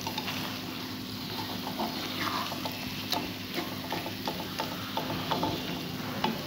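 Mashed-potato, onion and tomato masala frying (bhuna) in a metal pan: a steady sizzle with scattered light scrapes and taps as a slotted spatula stirs and presses it.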